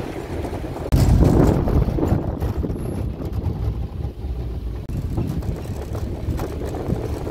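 A motor vehicle running, a steady low rumble with wind buffeting the microphone; the noise gets louder about a second in.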